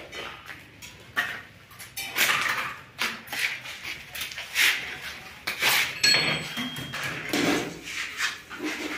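Irregular metallic knocks and clinks, with a brief high ring now and then, from work on stainless steel railing posts and tools.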